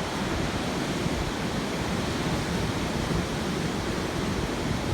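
Steady wash of Pacific surf breaking below the bluff, mixed with wind buffeting the microphone.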